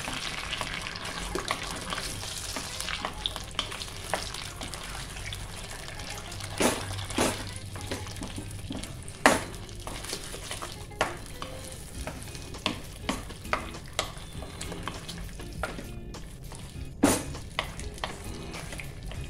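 A block of khuwa (milk solids) frying in ghee in a kadhai, sizzling steadily while a wooden spatula presses, breaks up and stirs it. The spatula knocks against the pan now and then, loudest about halfway through and again near the end.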